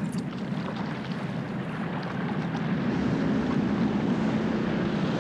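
Boat engine droning steadily with wind and sea noise, growing louder over the second half.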